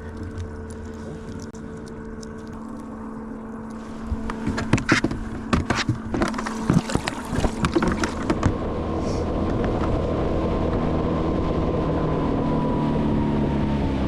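A small jon boat motor running steadily with a hum and a high whine. A run of knocks and clatter in the boat comes from about four to eight seconds in.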